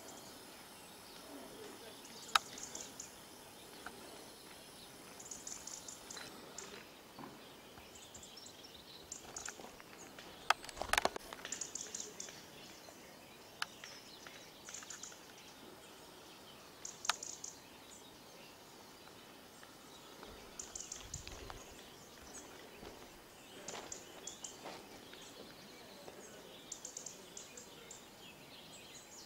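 Quiet rural outdoor ambience with small birds chirping in short high bursts every second or two, and a few sharp clicks, the loudest about a third of the way in.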